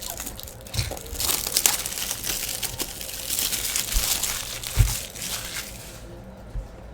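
Plastic-foil trading-card pack wrapper crinkling as it is handled, for about five seconds, with a couple of soft knocks on the table.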